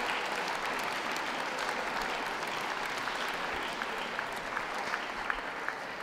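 Audience applauding, the applause slowly dying down.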